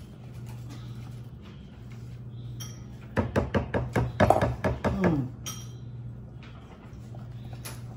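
A spatula knocking against a mixing bowl, a quick run of about ten sharp taps some three seconds in, knocking off the whipped cream. A steady low hum runs underneath.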